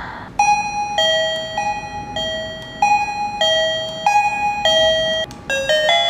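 KERUI M7 wireless welcome-chime receiver playing an electronic two-note doorbell chime through its small speaker, a higher and a lower note alternating about every 0.6 s. Just over five seconds in, it cuts off and a different, faster tune begins as the next doorbell song is selected.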